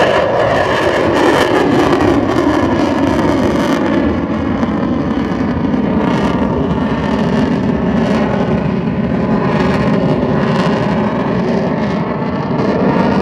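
Jet aircraft passing overhead, its engine tone dropping in pitch during the first few seconds as it goes by, then running on as a steady, loud engine noise.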